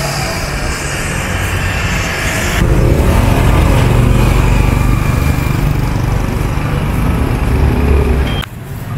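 A motor vehicle engine running close by, steady and loud, over general street noise. The higher hiss thins out about two and a half seconds in, and the sound dips near the end.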